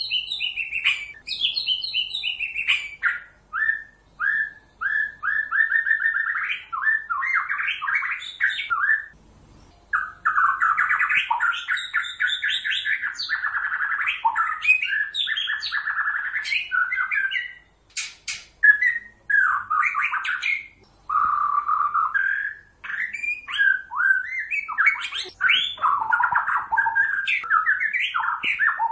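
White-rumped shama singing its full, energetic 'gacor' song: fast, varied whistles and chattering phrases, broken by short pauses about nine and seventeen seconds in. This is the kind of song bird-keepers play to prompt a caged shama to answer.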